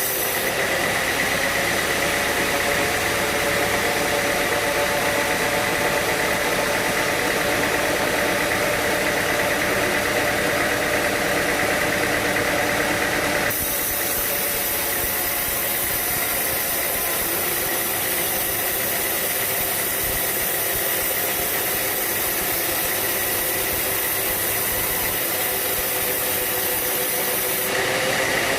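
Sawmill machinery running steadily, engine and saw together, with a steady high whine over the noise. The character of the sound changes abruptly about halfway through.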